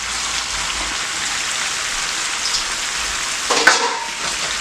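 Chicken and sausage frying in a hot pot, a steady sizzling hiss, with a brief clatter about three and a half seconds in.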